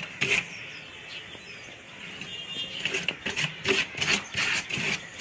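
Hand rubbing and spreading Fevicol glue over the cooling pipes and inner wall of a deep-freezer cabinet: a series of short scraping strokes. They go quiet for a moment about a second in, then come more densely again after about three seconds.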